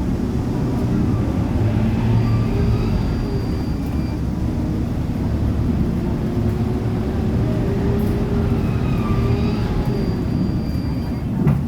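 City bus running down the road, its engine and road noise heard from inside the passenger cabin, with a low tone that slowly rises in the middle as the bus picks up speed.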